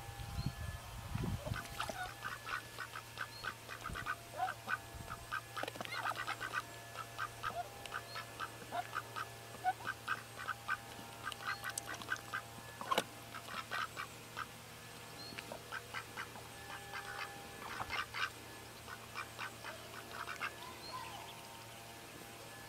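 White domestic ducks quacking, in runs of short repeated calls, over a low steady hum.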